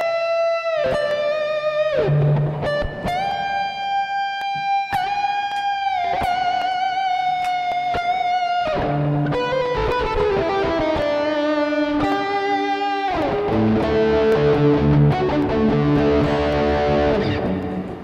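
Electric guitar played through a Harley Benton American TrueTone overdrive and amp-sim pedal with its voice and drive all the way up, giving a heavily saturated lead tone with reverb. Long sustained notes with bends and vibrato turn to busier playing with lower notes in the last few seconds.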